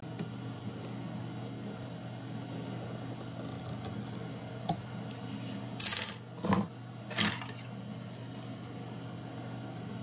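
A few short, sharp metallic clinks in quick succession about six seconds in, like small metal fly-tying tools being handled or set down on a hard surface, over a steady low hum.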